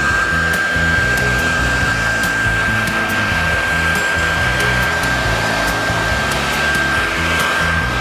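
Philips DryCare Advanced HP8232 2200 W hairdryer running steadily with its volume diffuser fitted: a constant rush of air with a steady high motor whine. Background music plays underneath.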